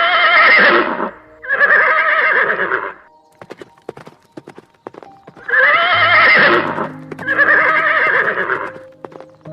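A horse whinnying: two pairs of long, quavering calls, the second pair about five seconds after the first, with sharp clicks between the calls.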